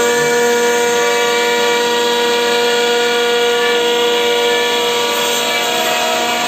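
CNC router spindle running at speed as its bit cuts through an MDF sheet: a steady, loud whine with several fixed pitches over the hiss of the cut, unchanging throughout.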